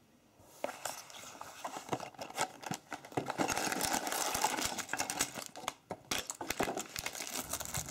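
A cardboard toy box being handled and opened, and plastic bags of LEGO bricks tipped out onto a table: a run of plastic crinkling, cardboard scrapes and small clicks and rattles, starting about half a second in.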